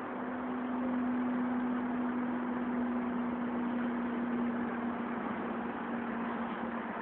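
A motor or engine running steadily, a constant-pitched hum over a broad hiss.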